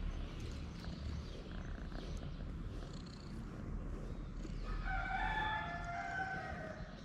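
A calico cat purring steadily while being brushed with a pin brush. About five seconds in, a rooster crows once, a held call of about two seconds that drops slightly at the end.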